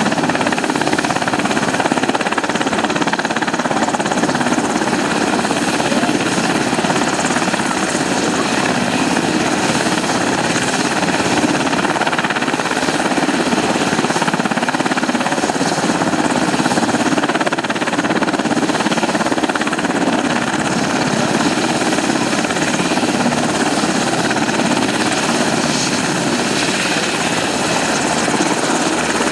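Sikorsky UH-60 Black Hawk's twin turboshaft engines and rotors running on the ground: a steady, loud rush of rotor noise with a constant high turbine whine.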